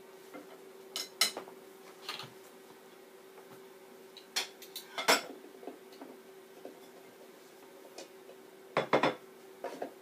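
Cutlery clinking against a ceramic plate and the air fryer's trays being handled: scattered sharp clinks and knocks, the loudest about a second in, midway and near the end.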